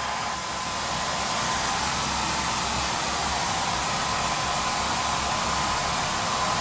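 Holistic Cure Dryer Rp hair dryer running steadily at a strong airflow: an even rush of air with a thin, steady whine on top.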